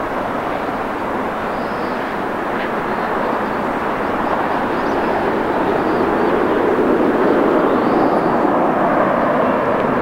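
Jet noise from an arriving Boeing 737 MAX 8's CFM LEAP-1B turbofan engines, a steady rushing sound that grows louder from about four seconds in and peaks near the end.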